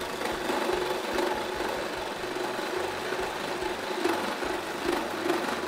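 Cordless reciprocating saw cutting through a pine 2x6 board, its blade sawing steadily through the wood with a wavering buzz, running on a battery that is about dead.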